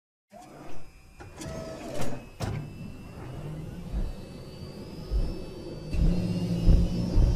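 Sound-design effects for a mechanical intro animation: after a moment of silence, metallic clicks and clanks over a low rumble, a faint whine that slowly rises in pitch, and about six seconds in a louder low mechanical rumble with a steady hum.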